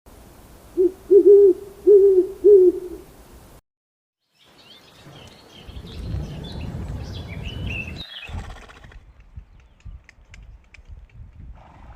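Owl hooting: four low hoots in about two seconds. After a brief silence comes a different recording of high, squeaky chirping calls over a low rumble, then scattered faint clicks.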